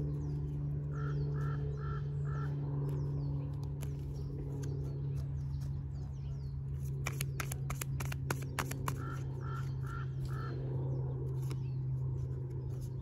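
A crow cawing four times in a row, twice, over small birds chirping and a steady low hum. Near the middle comes a quick run of sharp clicks as a deck of tarot cards is shuffled.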